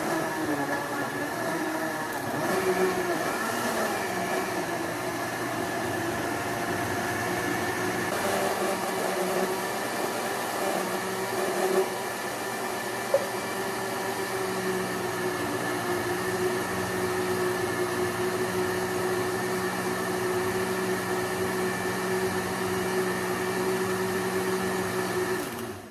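Countertop blender running steadily, blending eggs, sugar, margarine, oil and bananas into banana-cake batter. It switches off near the end.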